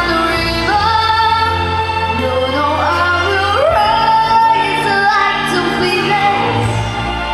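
Female vocalist singing long held notes with sliding pitch changes between them, over steady backing music.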